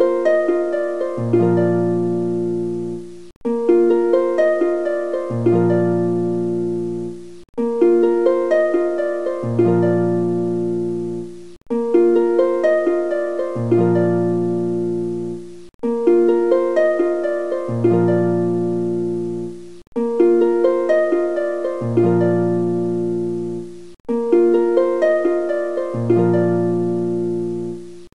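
Background music of plucked notes, a short melodic phrase looping about every four seconds with a brief break between repeats.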